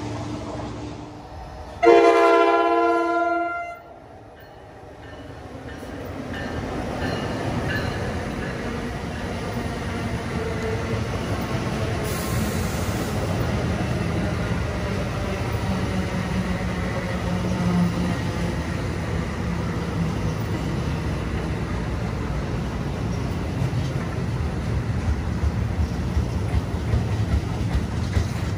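Train horn sounding one chord-like blast of about two seconds, a couple of seconds in. Then a passing train's steady rumble and wheel noise builds and holds, with sharper clicking of the wheels near the end.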